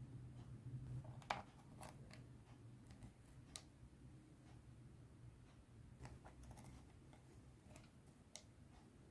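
Faint, scattered clicks and pops of clear slime being mixed by hand, with a cluster of them past the middle, over a low steady hum.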